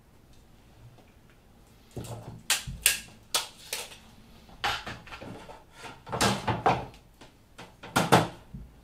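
A thin aluminium sheet being handled and shifted on a wooden workbench: after a couple of quiet seconds, a series of sharp clatters and metallic rattles in uneven clusters, loudest near the end.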